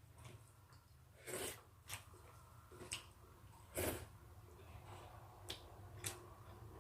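Faint mouth sounds of eating a rice meal: half a dozen short, wet smacks and clicks while chewing, the loudest about a second and a half in and near four seconds.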